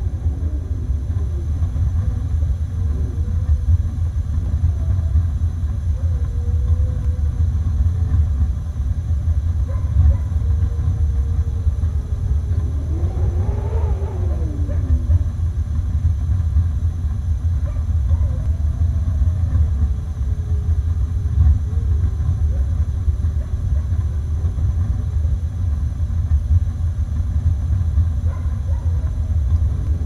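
Snowstorm wind with a steady low rumble, and wolves howling: several long howls that glide up and down, the clearest about halfway through, where two howls overlap.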